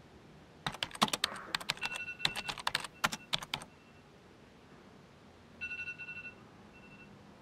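Rapid, irregular clicking like typing on a keyboard for about three seconds, mixed with a few short, high electronic beeps; after a pause, one more short beep near the end.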